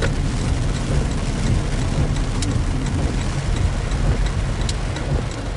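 Heavy rain pouring down on a car, heard from inside it, a steady hiss with a low rumble beneath and scattered drop ticks.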